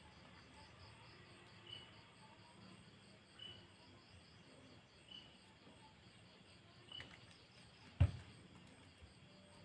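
Faint high chirps repeating about every second and a half over a low background hum, with one sharp click about eight seconds in.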